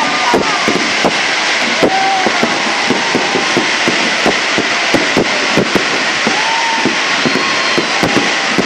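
Fireworks display: a rapid, irregular run of bangs over continuous crackling and crowd noise, with short pitched whoops or whistles scattered through.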